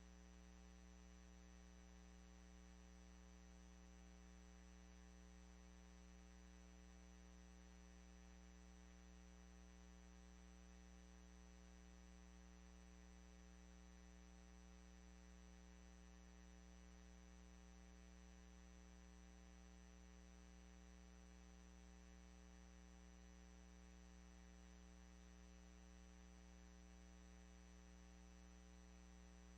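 Near silence with a faint, steady electrical hum and light hiss carried on the idle dispatch-radio audio feed.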